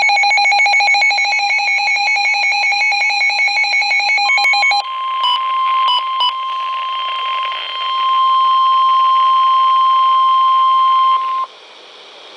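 NOAA Weather Radio emergency alert received on weather radios. For about the first five seconds the SAME digital header plays as rapid warbling data tones. It gives way to the steady 1050 Hz warning alert tone, held for about seven seconds, with a few short beeps over its start, then cuts off into quieter radio hiss.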